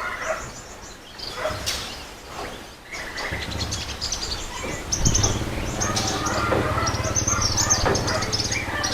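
Many small birds chirping and twittering in quick repeated calls, with a low steady hum coming in about three seconds in and running under them.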